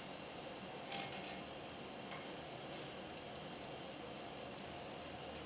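Æbleskiver batter sizzling in an æbleskiver pan, a steady low hiss, with a brief scrape of a knitting needle against the pan about a second in as the balls are turned.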